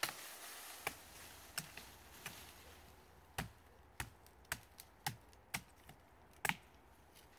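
A Swiss billhook (Gertel) chopping into the trunk of a young birch. There are about ten sharp blows at an uneven pace, the hardest at the start and near the end.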